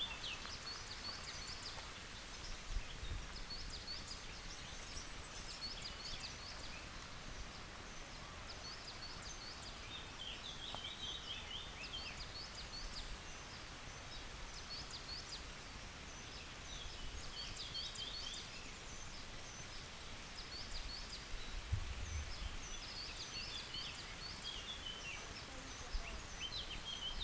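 Small birds chirping and trilling in short repeated phrases over a faint steady hiss, with a few low rumbles of wind or handling on the microphone.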